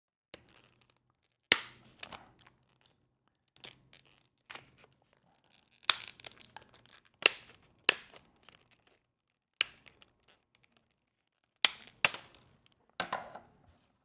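Scissors cutting around the edge of a rigid clear plastic blister pack: a dozen or so sharp, crunching snips at irregular intervals, with short pauses between.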